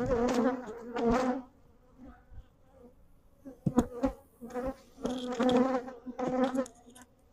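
Honeybees buzzing close around the microphone, a low steady hum that swells loud twice as bees fly past and fades between. The colony is stirred up by the hive being opened. A couple of sharp knocks come about halfway through.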